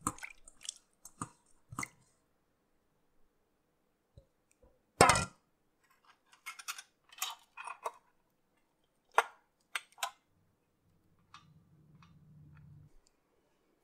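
Scattered clinks, taps and scrapes of a steel bowl and a metal spit against a metal oven tray while a whole marinated chicken is handled and skewered. One sharp knock about five seconds in is the loudest, and a faint low hum comes in near the end.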